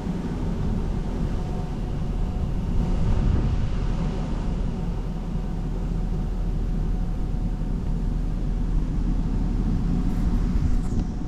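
Steady low rumble of a vehicle driving, engine and road noise running evenly with a faint hum.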